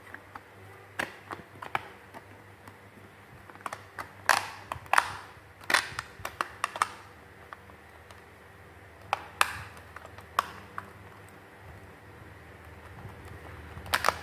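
Irregular clicks and knocks of plastic parts being handled, from hands working on an old TV set-top box's casing, with the sharpest taps in the middle and another cluster near the end.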